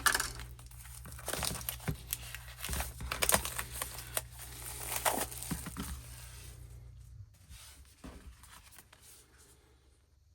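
Packaging of a K-pop digipack album being torn open and crinkled, in irregular crackles and clicks that thin out over the last few seconds.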